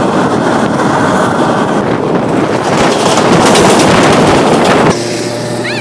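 A moving train heard from its open doorway: a loud, even rush of wheels on the track and wind on the microphone, louder from about two seconds in as a train passes on the next track. It cuts off suddenly near the end to a quieter steady hum.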